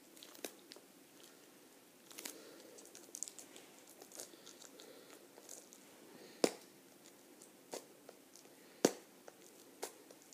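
Plastic wrapping on a trading-card booster box crinkling and crackling as it is picked at and peeled off, with scattered sharp clicks, the loudest about six and a half and nine seconds in.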